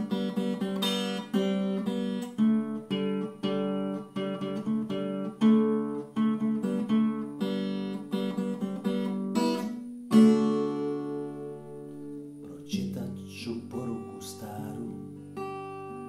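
Acoustic guitar playing a song's instrumental introduction, a steady run of picked notes at about two to three a second. About ten seconds in a full strummed chord rings out and dies away, and a lower bass part comes in a couple of seconds later.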